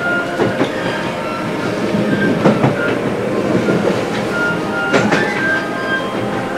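A train in motion heard from inside the carriage: a steady running noise with irregular clacks of the wheels over the rail joints and brief high wheel squeals.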